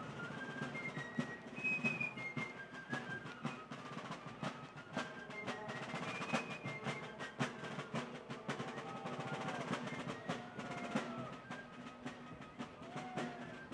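Fife and drum corps playing a marching tune: shrill wooden fifes carry a high melody over the steady beat of rope-tension field drums.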